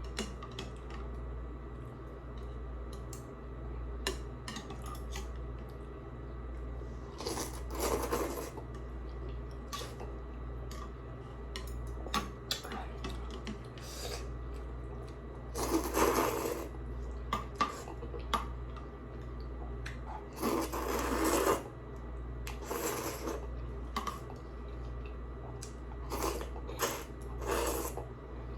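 Eating sounds: utensils clicking and clinking against bowls and plates, with about six louder mouth sounds of eating, each lasting up to a second. A steady low hum runs underneath.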